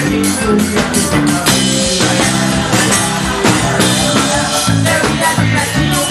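Forró band music playing with a steady beat.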